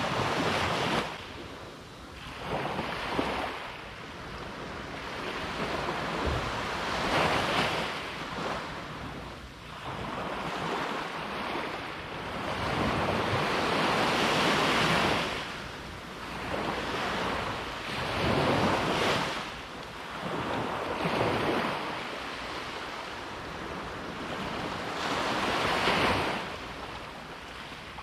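Ocean surf breaking and washing ashore, swelling and falling back every few seconds; the largest surges come near the middle and near the end.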